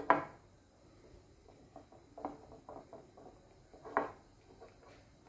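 Fingers stirring a thin flour-and-water batter in a china bowl: quiet wet stirring with a few short knocks and clicks, the loudest just at the start and another about four seconds in.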